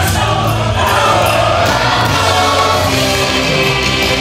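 Halloween parade music with a group of voices singing over a steady bass line.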